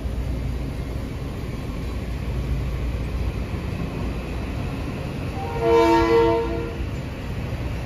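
Kawasaki M8 electric commuter train rolling past the platform with a steady low rumble. About five and a half seconds in, a train horn sounds once for about a second and a half, several tones together, swelling twice before it stops.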